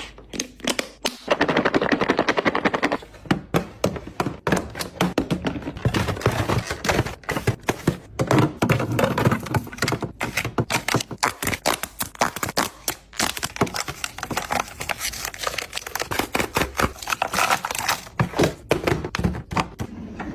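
Quick clatter of containers and packaging being handled and set down: a run of irregular clicks, taps and knocks, several a second, with stretches of rustling between them.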